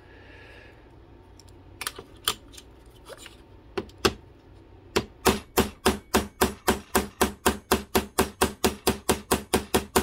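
Metal-on-metal tapping as a flat punch is struck against the bent leading edge of an aluminum RC-boat rudder lying on a plastic cutting board, working the bent edge back into shape. A few scattered taps come first, then about halfway through a steady run of quick, evenly spaced taps starts, about three or four a second.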